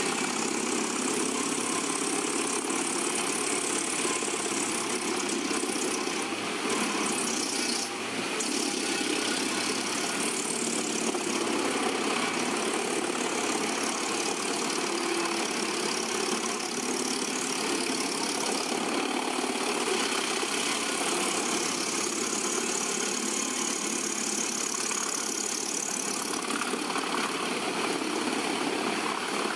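DIAMANT 2000 mobile wood chipper running steadily while chipping conifer brush and treetops fed in by its crane grab: a constant mechanical din of engine and chipper.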